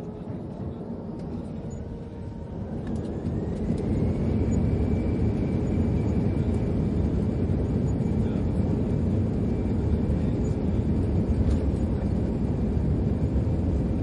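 Airbus A320's twin turbofan engines spooling up to takeoff thrust, heard inside the cabin. A whine rises in pitch and the engine noise grows louder over the first few seconds, then holds steady and loud.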